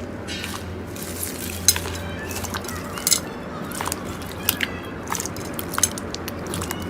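Slime being squeezed and worked by hand, giving irregular small clicks and pops over a steady low background.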